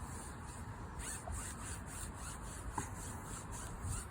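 Light strokes brushing back and forth across a window screen's mesh, a soft repeated scratchy rubbing with little pressure.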